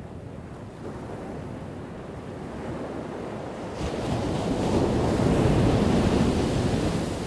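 Ocean surf: a wave builds and breaks, its rushing wash loudest about five seconds in, then fading away.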